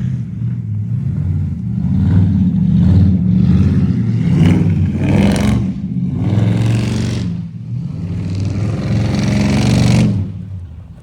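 Car engine revving hard while sliding in snow, the revs rising and falling in several loud surges with a rushing noise over them, then dropping away near the end.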